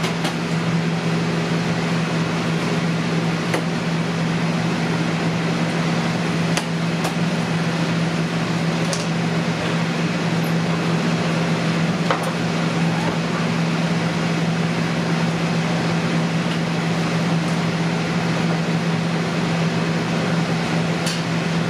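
Steady hum and fan noise of commercial kitchen equipment, with a handful of faint clicks and knocks from knife work on a plastic cutting board.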